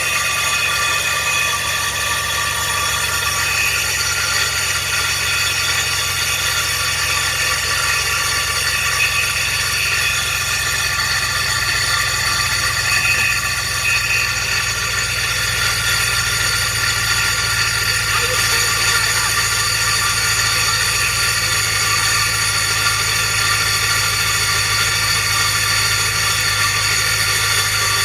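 GMC engine running just after start-up with a steady high metallic grinding whine over the engine hum. The owner takes it for the starter drive gear not retracting and grinding on the flywheel.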